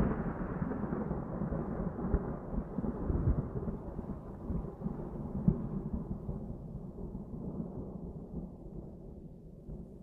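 Thunder in a rainstorm: a long, uneven low rumble that slowly dies away, its higher crackle fading first.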